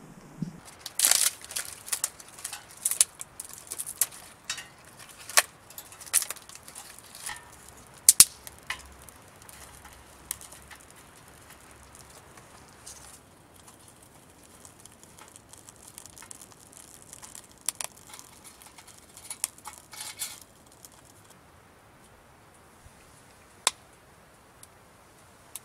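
Dry kindling cracking and snapping as a small twig stove is lit and fed sticks: sharp, irregular cracks, thick for the first dozen seconds, then sparser.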